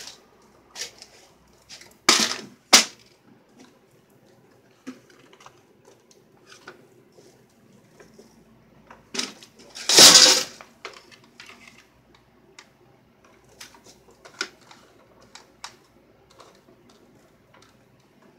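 Scattered small clicks and knocks, with two sharp louder clicks about two seconds in and a louder rustling knock about ten seconds in: handling noise of the recording phone being moved and set down on a desk.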